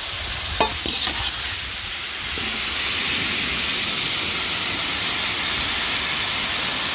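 Chicken pieces sizzling as they fry in sesame oil in a pan, with a couple of clinks of the stirring spoon about half a second to a second in. The sizzle then settles into a steady hiss.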